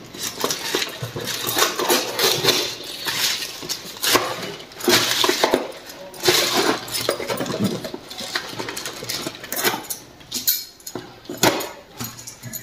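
A thin plastic carrier bag rustles and crinkles in irregular bursts as a cardboard box is pulled out of it and handled.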